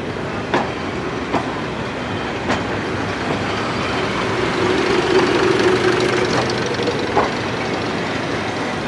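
A heritage Class 101 first-generation diesel multiple unit running slowly past along the platform, its underfloor diesel engines running steadily. Its wheels give a few sharp clicks over the rail joints, and the engine hum swells for a couple of seconds about halfway through.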